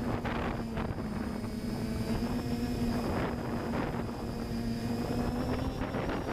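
FPV multirotor drone's electric motors and propellers humming at a steady pitch in flight, heard from its onboard camera, with gusty wind noise on the microphone.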